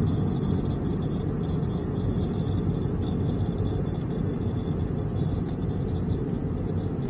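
A car driving along a road: a steady, low rumble of road and engine noise.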